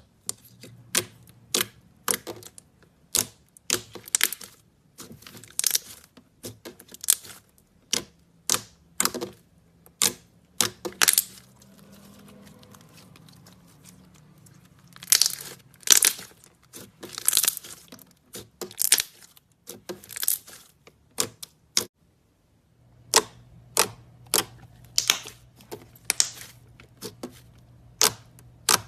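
Slime being worked by hand, giving off irregular sharp pops, snaps and crackles, a few a second, with a quieter stretch a little before the middle.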